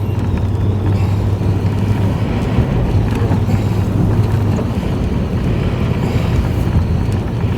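Steady drone of a vehicle's engine and road noise heard inside the cab while driving, with wind noise over it.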